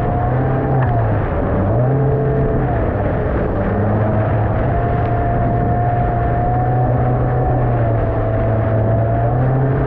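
Outboard motor of a Stabicraft 15.5 boat running steadily under way through rough water, its pitch dipping and rising a little in the first few seconds, over a continuous rushing noise.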